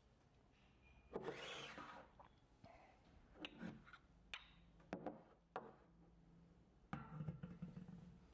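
Faint clicks and scrapes of small metal bicycle hub parts being handled: a short rub about a second in, four or five light clicks, then another rub near the end, as the main bearing and its washer are set up for pressing into the hub.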